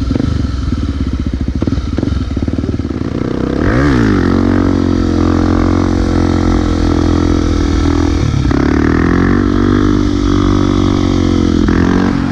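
Honda XR250 Tornado's single-cylinder four-stroke engine, fitted with an aftermarket Belparts exhaust. The revs rise sharply about four seconds in and are held high. They dip briefly past the middle, climb again, and drop back near the end.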